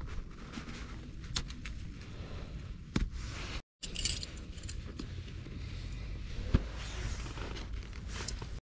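A handful of thin metal tent pegs clinking and jingling, with scattered sharp clicks from the metal and the strap buckle as a tent corner is staked out.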